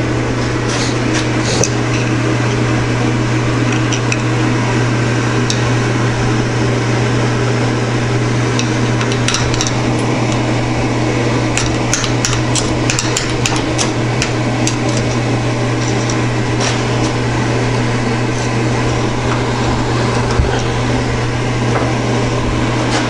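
Scattered metallic clicks and taps of a screwdriver and steel balls in a Honda S2000 CV joint as its cage is turned in a vise and the balls are pried out, most of them near the middle. A steady low hum runs underneath.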